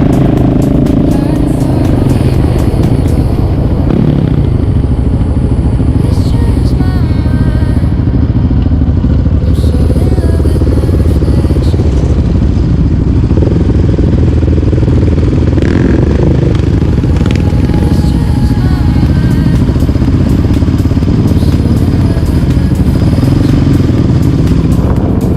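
A quad (ATV) engine running steadily while the quad is ridden, loud and close.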